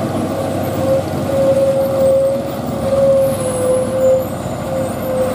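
Scania P380 truck, hauling a heavy crane on a trailer, comes down a steep downhill bend with its diesel engine running and a steady whine over it.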